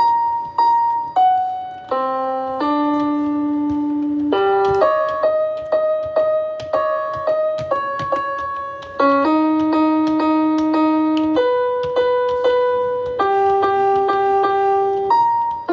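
Piano-sounding keyboard playing an instrumental passage with no singing: single notes and chords, some held and some struck over and over in quick succession.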